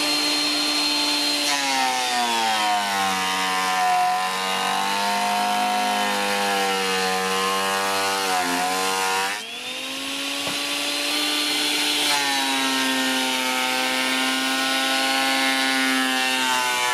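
Parkside PADM 1250 planer-thicknesser running while it thicknesses a wide, very hard oak board across its full width. The motor whine drops in pitch as the cutter block bites into the oak, holds low for several seconds, then climbs back. It sags again more lightly a few seconds later and rises near the end.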